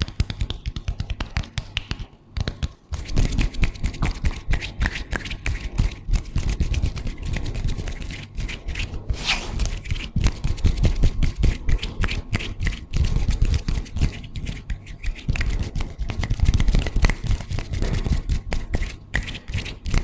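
Hands rubbing, tapping and scratching right against a sensitive microphone: a dense run of rapid taps and rustles with a deep rumble, getting much louder about three seconds in. A brief airy swish about nine seconds in.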